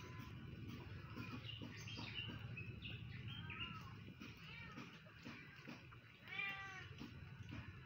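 Cats meowing again and again, many short, arching calls with the loudest about six seconds in, over a steady low hum.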